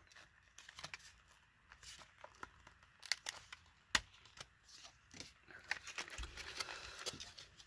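Clear plastic blister pack being peeled and torn off its cardboard backing card by hand, with faint crinkling and crackling of the plastic and card. There are sharp clicks about three and four seconds in.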